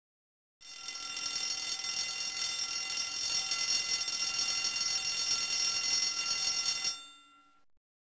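Alarm clock bell ringing steadily, starting about half a second in and cutting off about a second before the end with a short fading ring.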